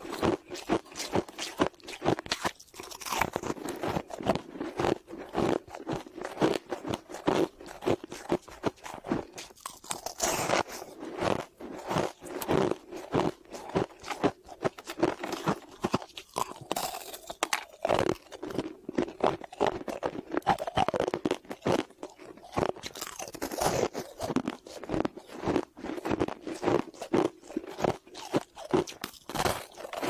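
Chunks of ice being bitten and chewed close to the microphone: a quick, continuous run of crisp crunches, several a second.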